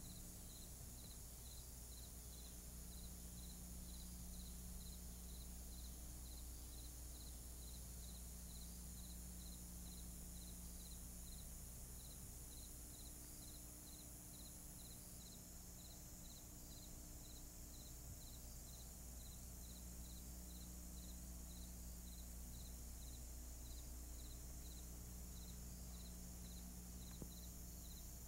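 Faint crickets chirping at an even pulse of about two chirps a second, over a steady low hum and hiss.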